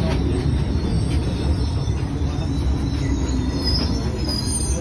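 Cairo Metro 5700-series Alstom train heard from inside the car: a steady low rumble, with a faint high squeal of the wheels near the end.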